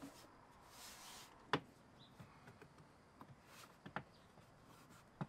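Faint, scattered handling noises: a soft rustle about a second in, small ticks, and two sharper clicks, about a second and a half in and again near four seconds.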